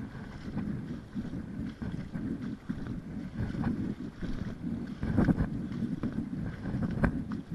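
Wind rumbling on a sports-camera microphone, with a couple of sharp knocks, the loudest about seven seconds in.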